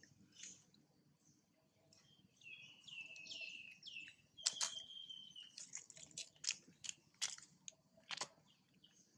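Faint bird chirps: a quick run of falling chirps, then a short held whistle about halfway through, followed by scattered sharp ticks.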